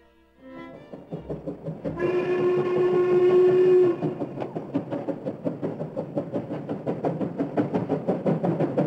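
Steam locomotive running with a train, its rapid beats going at about five a second. Its whistle sounds one steady, low-pitched blast of about two seconds near the start.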